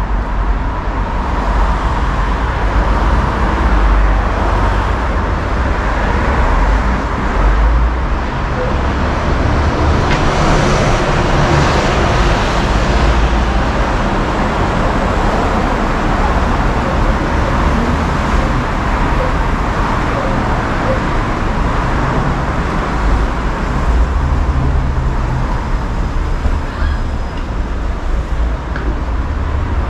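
Steady city street traffic: cars and a bus passing on the road, a continuous low rumble with a swell of tyre and engine hiss about ten seconds in.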